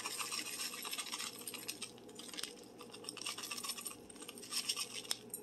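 Dry onion soup mix shaken from a paper packet into a glass bowl: a soft scratchy patter of grains with the paper rustling, and one sharp click near the end.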